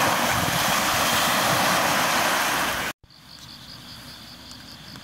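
Wind rushing over the microphone with waves washing on the lakeshore, a loud steady noise that cuts off suddenly about three seconds in. After it, crickets trill in a steady high pulsing chirp.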